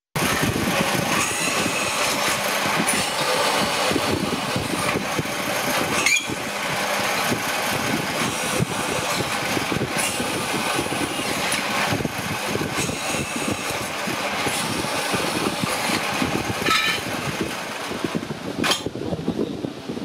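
Pedestal drill press running and drilling into cast aluminium motor end housings: a steady motor drone with the noise of the bit cutting metal, and a few short sharp knocks along the way.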